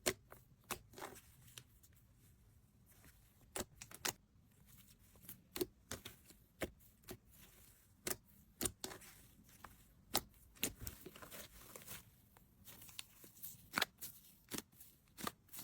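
A squishy toy being handled for ASMR: irregular sharp crackles and snaps, about one to three a second, with small tearing and crinkling sounds between them.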